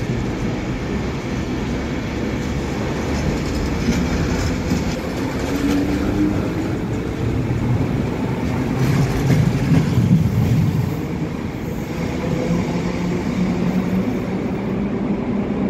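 Mat64 electric multiple unit accelerating out of the station, its traction motors humming with a pitch that climbs as it gathers speed, over the rumble of its wheels on the rails.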